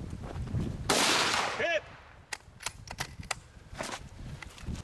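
A single rifle shot about a second in, followed by a short shouted call and a run of sharp clicks.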